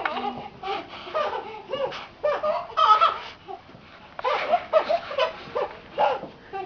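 Baby laughing in a string of short, high-pitched bursts with brief pauses between them.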